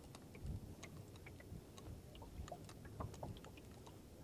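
Faint, irregular ticks and soft knocks of small waves lapping against the hull of a small open boat, over a low wind rumble, with a couple of slightly louder knocks about half a second and three seconds in.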